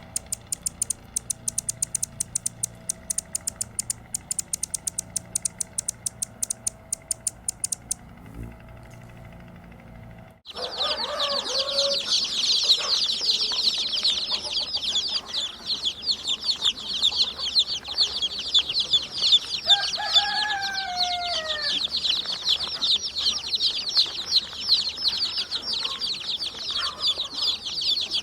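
Birds chirping. First comes a fast, even series of very high, sharp chirps, several a second, for about eight seconds. After a short lull, a dense chorus of many small birds chirping at once takes over, with a few lower, falling calls in it.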